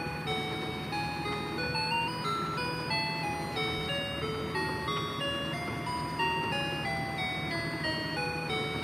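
Toy cash pusher machine playing its simple electronic melody, a steady run of short beeping notes stepping up and down, over a constant low mechanical hum.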